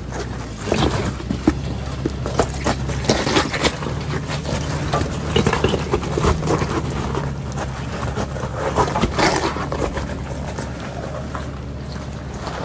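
Off-road vehicle's engine running steadily at low revs, with frequent knocks and clatter throughout.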